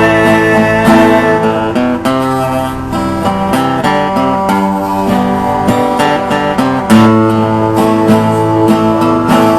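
Solo acoustic guitar playing an instrumental passage of strummed and picked chords, with the chords changing every second or so and no singing.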